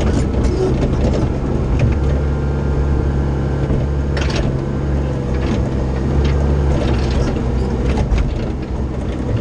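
CAT 304 CR mini excavator's diesel engine running steadily under work, with several sharp metallic clanks and rattles from the machine as it moves and levels dirt.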